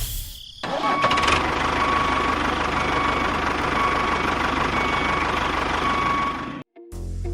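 Small engine of a homemade mini tractor-bulldozer running steadily, with a faint high whine over it. It cuts off abruptly about a second before the end.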